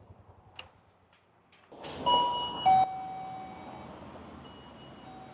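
Two-note electronic door chime (ding-dong): a high note, then a lower note that rings on for about a second and fades.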